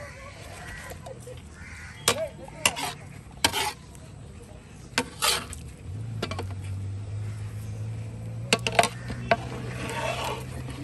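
A long metal ladle stirring rice into simmering chicken gravy in a large metal cooking pot, clinking against the pot's sides in several quick knocks. A low steady hum comes in under it about halfway through.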